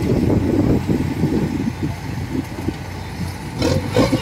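Kubota DC105X combine harvester's diesel engine running as the machine works its way down a steep dike slope, with a rough, uneven sound. Two sharp clacks come near the end.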